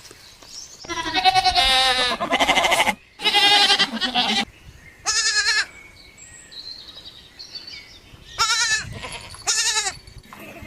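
An animal bleating: loud, quavering calls. Three long calls come close together in the first half, then two shorter ones later, with a pause between.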